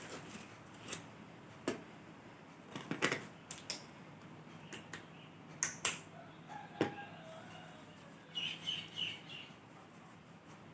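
Faint room noise with scattered light clicks and knocks, and a quick run of three or four short bird chirps about eight seconds in.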